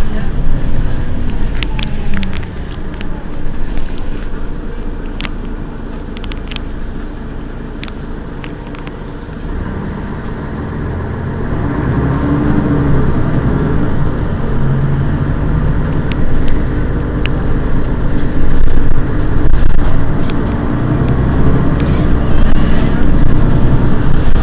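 Mercedes-Benz Citaro city bus standing at a stop with its engine idling, over street noise. There are a few sharp clicks in the first seconds, and the sound gets louder again from about halfway through.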